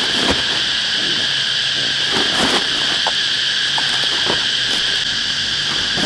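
Steady, loud drone of a chorus of insects, several high buzzing tones held without a break. A few short knocks and rustles sound over it.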